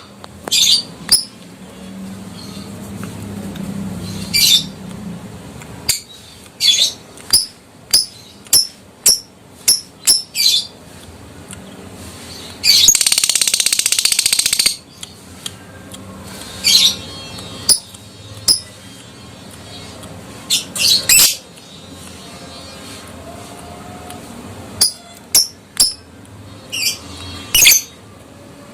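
Lovebird giving short, shrill, high-pitched chirps and squawks at irregular intervals, with one long, rapid chattering trill of about two seconds near the middle: the 'ngekek' song of an adult fighter lovebird.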